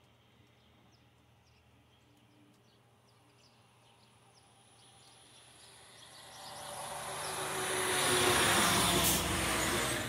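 A vehicle passing by: a rushing noise that swells over the second half and peaks near the end.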